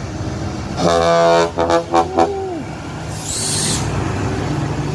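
Truck horn blowing: one long blast about a second in, then several short toots, with the last note sliding down in pitch. A short hiss of air follows, over the diesel engine of the truck running as it passes close by.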